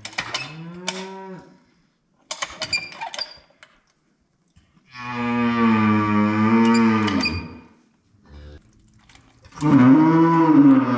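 A cow in a hard calving bellowing as her calf is pulled with a calf jack: a short groan about a second in, then two long, low moos, one midway and one near the end. Sharp ratchet clicks of the calf jack come in the first few seconds.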